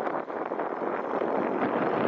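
Wind rushing over the microphone aboard a fishing boat at sea, a steady even noise.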